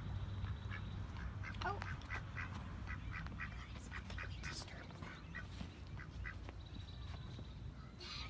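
Ducks quacking, a run of short calls, over a steady low rumble.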